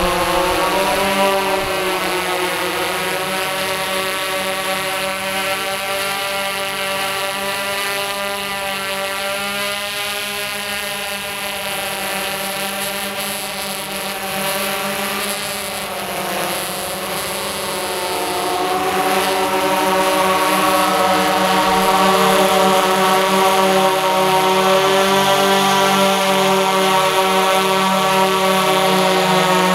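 Tarot X8 octocopter's eight motors driving DJI 1552 propellers in flight: a dense, many-toned propeller buzz whose pitches drift and beat against each other as the motors change speed. It grows quieter in the middle and louder again from about two-thirds of the way in, as the craft comes back close.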